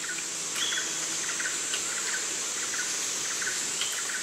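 Tropical jungle ambience: a steady high-pitched insect drone with short chirping calls repeating about once a second.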